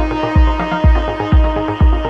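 Music with a steady kick drum beat, about two beats a second, over a held low note.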